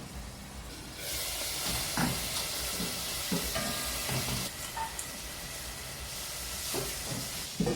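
Chicken wings frying in butter in a wok, sizzling steadily from about a second in, with a cooking utensil scraping and knocking against the pan several times.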